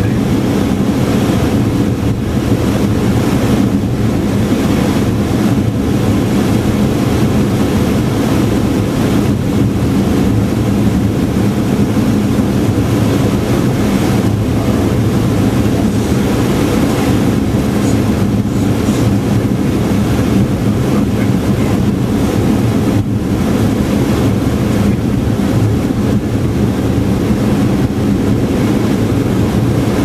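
Steady, loud rushing noise inside an airliner's cockpit on an instrument approach: the airflow over the nose and the engine noise, unchanging throughout.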